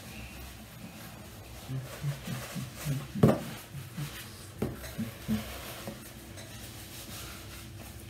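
Tableware knocking now and then during a meal: plates and dishes being handled, with the sharpest knock about three seconds in and another about a second later.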